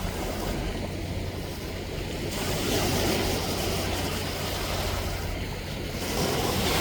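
Sea waves washing onto the shore, the surf swelling louder and easing off in slow surges, with a steady low wind rumble on the microphone.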